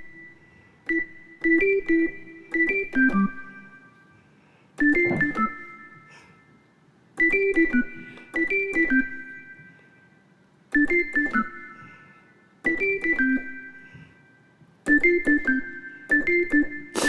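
Yamaha Montage M synthesizer playing a percussive organ patch: short, clipped notes that die away quickly. The notes come in little riffs of four to six, with a pause of about a second between riffs, played as ear-candy fills for Afrobeat-style production.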